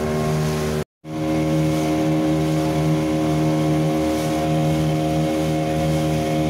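Speedboat engine running steadily at cruising speed. The sound cuts out completely for a moment about a second in, then resumes unchanged.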